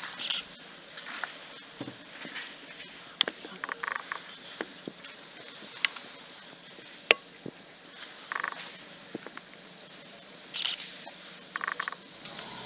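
A steady, high-pitched insect drone from the forest. It is broken by a few sharp clicks and several short, rapid rattles.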